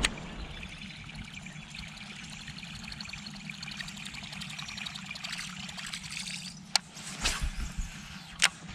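Water trickling and dripping, with three short sharp clicks or knocks near the end.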